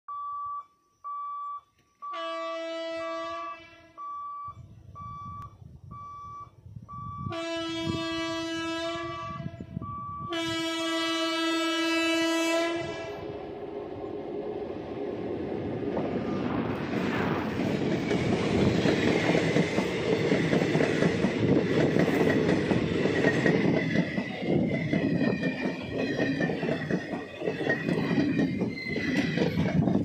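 Electric locomotive's air horn sounds three blasts, the third the longest, over a repeated high beep. Then the WAP-4 electric locomotive and its express coaches pass close by: a rumble builds and stays loud, with fast clattering of wheels over rail joints and a thin steady whine on top.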